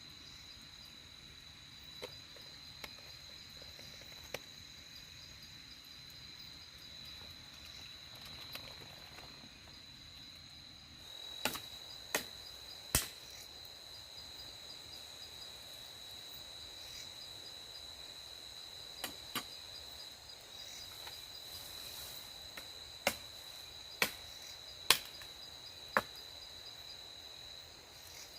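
Night insects, crickets, chirring steadily at a high pitch. About a dozen sharp knocks or cracks come at irregular intervals, a few in the first seconds and louder ones in the second half.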